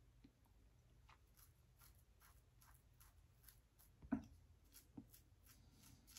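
Faint rasp of a Shave It Shadow double-edge safety razor cutting two-and-a-half-day neck stubble through lather, in short strokes about two or three a second. A louder soft knock about four seconds in.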